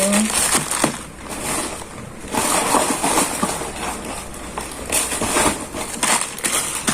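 Packaging rustling and crinkling as items are handled, with scattered light clicks and knocks.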